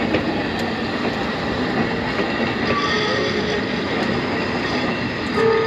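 Historic narrow-gauge electric railcars running past close by, with steady noise from the wheels on the rails. A steady tone comes in near the end.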